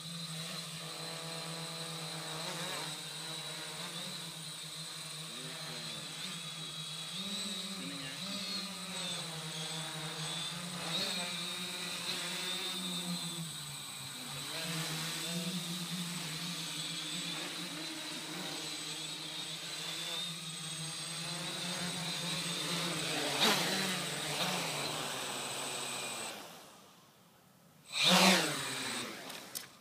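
Hexacopter's six RC Tiger MT3515 brushless motors spinning 14-inch Graupner propellers: a steady multi-tone whine whose pitch wavers up and down as the throttle changes. The whine cuts out a few seconds before the end as the motors stop on the ground. A short loud rush of air follows.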